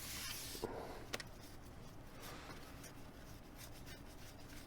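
Faint rustle of baseball cards sliding over one another as a stack is flipped through by hand, with a small click about a second in.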